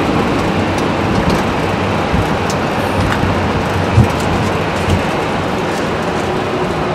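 Boeing 767 flight-deck noise on the ground after landing: a steady rumble of engines, airflow and wheels as the airliner rolls along the runway and turns off. Two short thumps come about four and five seconds in.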